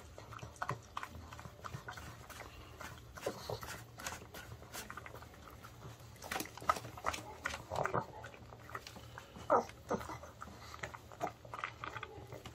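A pug eating from a hand: irregular wet licking, smacking and chewing sounds.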